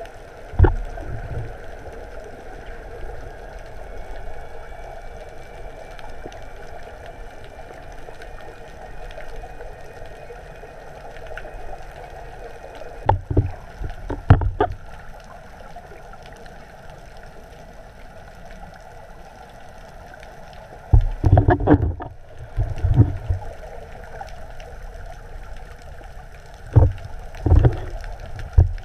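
Underwater sound picked up by a submerged camera: a steady low hum of water noise, broken by a few short bursts of bubbling and knocking, clustered about half a second in, around the middle, and twice near the end.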